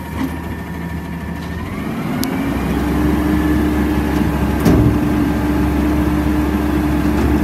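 Peterbilt 320 front-loader garbage truck's engine idling, then revving up about two seconds in and holding at the higher speed while the hydraulic arms lower a steel dumpster. A single metallic knock comes about two-thirds of the way through.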